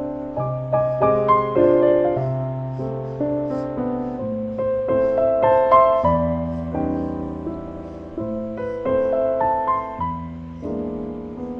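Background piano music: a melody of single struck notes over held low chords.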